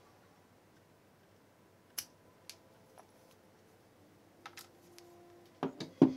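Scissors snipping the stitching thread on a hand-sewn leather piece: one sharp click about two seconds in and two lighter ones after it. Near the end, a few louder knocks of things being handled and set down on the workbench.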